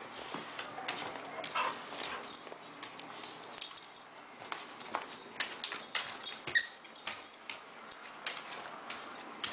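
Lab/Spaniel mix dog playing tug with a plush toy on a hardwood floor: scattered clicks and scuffs of claws and paws on the boards, with a few short high squeaks.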